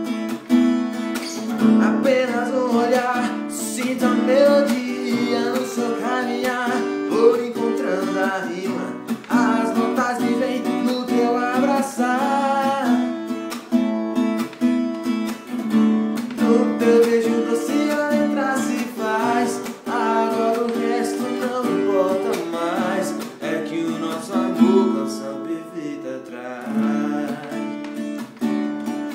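Acoustic guitar strummed in a steady rhythm while a male voice sings along: a solo guitar-and-voice cover of a Brazilian gospel song.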